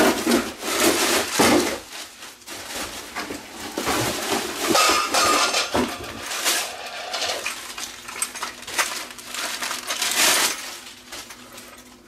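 Cardboard and plastic packing wrap rustling and crinkling as it is pulled and torn off by hand, with many small sharp crackles and handling knocks.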